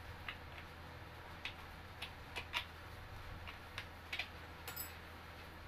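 Scattered light clicks and taps, about a dozen at uneven intervals, from office chair parts and hardware being handled during assembly.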